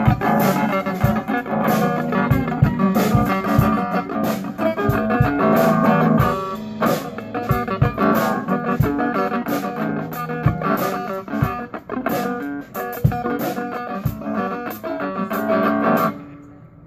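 Electric guitar and drum kit jamming live through amplifiers, with a steady beat of drum hits under the guitar. The playing stops about a second before the end.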